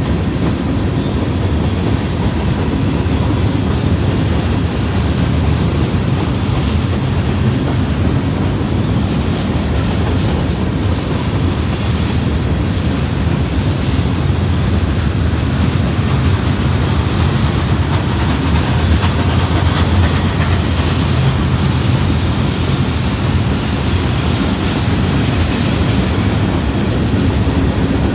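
Freight train cars (boxcars and covered hoppers) rolling past at close range: a steady, unbroken rumble of steel wheels on the rails.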